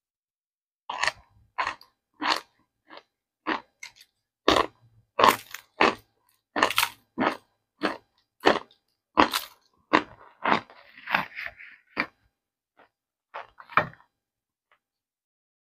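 Compressed chunks of Argo cornstarch crunching, about twenty sharp crunches at one or two a second, with a denser crackling stretch around ten to twelve seconds in. The crunching stops about fourteen seconds in.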